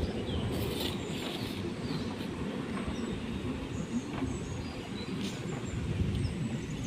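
Outdoor ambience: a steady low rumble with a few faint, short high chirps and light clicks.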